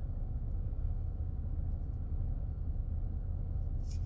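Steady low rumble inside a car cabin, as of the car's engine idling, with a brief soft rustle near the end.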